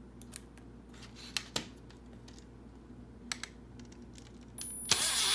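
A few light clicks and taps of small screws and the sheet-metal UV cell being handled, then about five seconds in a power drill starts up with a high whine, driving a self-threading screw into the cell's metal end plate.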